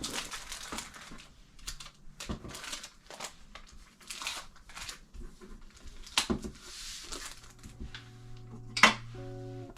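Handling of packaging and small items on a work table: irregular rustling and light taps, with one sharp click about nine seconds in.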